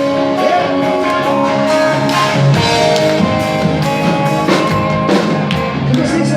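Live rock band playing, with electric guitar and drum kit to the fore.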